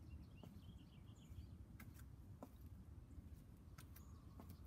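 Near silence: a low steady background rumble with a few faint, short bird chirps.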